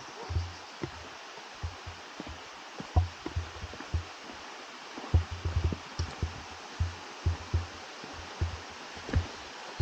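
Irregular low thumps and rustles of footsteps on a trail, over a steady hiss of running water.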